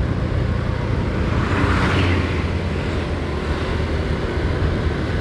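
Motorcycle engine running steadily under wind and road noise while riding, with a swell of rushing noise about two seconds in.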